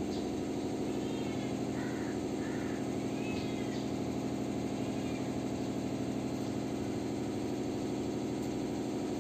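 A motor running steadily, a low pulsing hum like an idling engine, with a few faint short high chirps over it in the first half.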